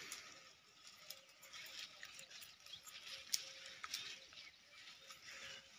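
Faint rustling with scattered small crackles and clicks from dry soybean plants being cut and handled by hand during harvest.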